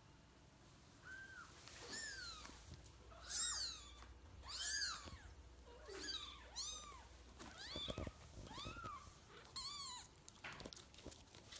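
Young kittens mewing: about ten short, high-pitched mews, each rising then falling in pitch, coming roughly once a second.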